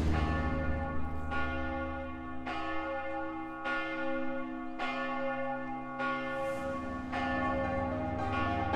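Church bell tolling, about eight strokes a little over a second apart, each left ringing into the next.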